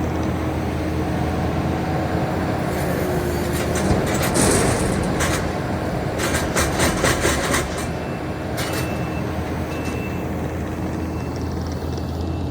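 Heavy equipment engine running steadily with a deep hum, with a louder rough stretch of rasping and rapid clattering in the middle, about three to eight seconds in.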